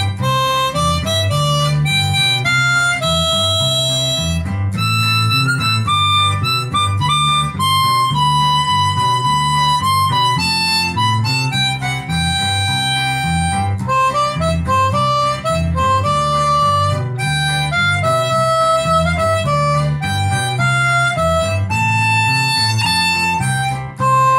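Harmonica playing a slow melody of held notes, with a steady low accompaniment underneath.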